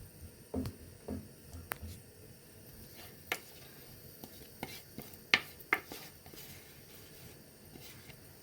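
Kitchen utensils and dishes being handled: scattered light clicks and soft knocks, with a few sharper clicks in the second half.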